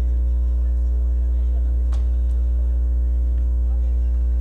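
Loud, steady electrical mains hum with a buzz of higher overtones, with one sharp knock about two seconds in.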